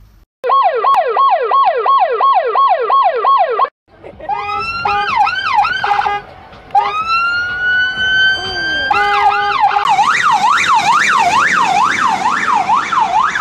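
Emergency vehicle sirens in a run of patterns: a fast yelp cycling about three times a second, a short break, slower wails including one long rising sweep, then the fast yelp again with a rushing noise behind it.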